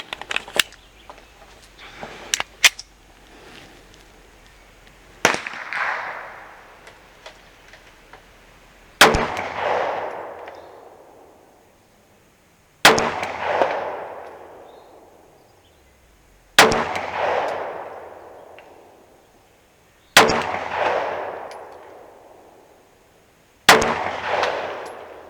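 Black Rain Ordnance Front Line 9mm pistol fired six times in slow, deliberate aimed fire, one shot roughly every three and a half to four seconds. Each shot is followed by a long echo dying away over a couple of seconds. A few light clicks come in the first few seconds.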